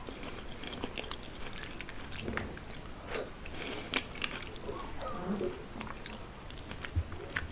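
Close-miked mukbang eating: a person biting and chewing food, with many quick crisp clicks and wet mouth sounds.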